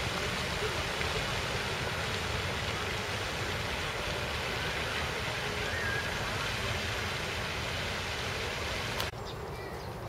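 Pond fountain jet spraying and splashing down onto the water, a steady rushing hiss. It cuts off abruptly about a second before the end, leaving a much quieter background.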